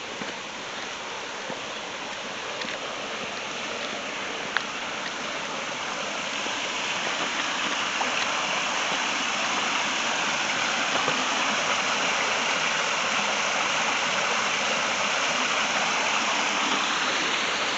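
Creek water rushing steadily over rocks, growing gradually louder.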